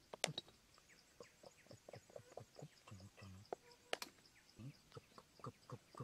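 Bamboo trigger sticks of a brick deadfall trap being handled, giving two sharp clicks, one just after the start and one about four seconds in. An insect chirps faintly and evenly behind them, about four pulses a second.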